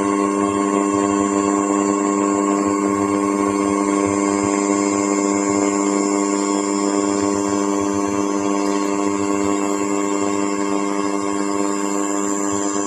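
Leica RTC360 laser scanner running a scan pass, its rotating head and spinning mirror giving a steady hum of several pitches with a thin high whine above it.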